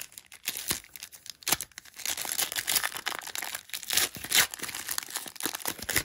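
Foil wrapper of a 2003 Upper Deck Play Ball baseball card pack being torn open and crinkled by hand. It crackles in quick sharp bursts, densest in the middle.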